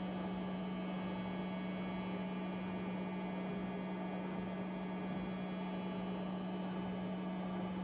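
Washing machine running its spin cycle: a steady hum with one strong low tone, unchanging throughout.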